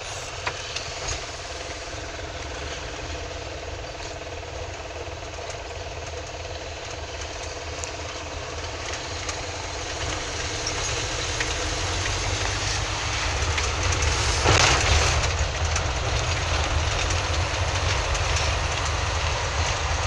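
Car engine and road noise heard from inside the cabin: a steady low rumble that grows louder from about halfway through, with a brief louder rush of noise about three-quarters of the way in.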